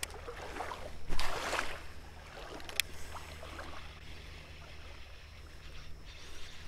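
A short splash on creek water about a second in, then a single sharp click about a second and a half later; after that only quieter outdoor water sound.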